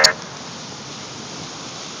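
Steady rushing of wind-driven ocean surf from storm waves. A louder pitched sound cuts off with a click right at the start.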